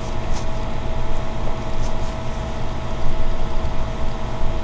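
Steady background hum and hiss from a microphone left open by a running computer, with a faint constant whine.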